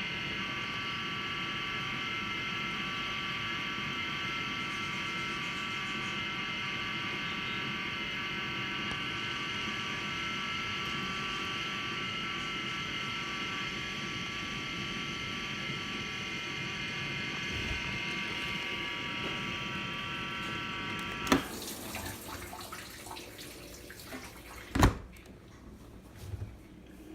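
LG LD1419W2 dishwasher running its wash cycle: steady water spray noise with a high whine of several tones, a noise the owner says is much louder than the machine normally makes. About 21 seconds in, a sharp click cuts the whine off, leaving a lower, rougher sound, and a loud knock follows a few seconds later.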